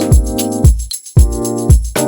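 Background music with a steady beat: held keyboard chords over a kick drum about twice a second and jingling tambourine-like percussion, with a brief break about a second in.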